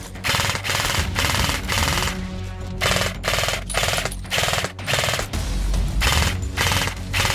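Airsoft guns firing short full-auto bursts, a dozen or so in quick succession, each a rapid rattle of shots lasting under half a second. A music track plays underneath.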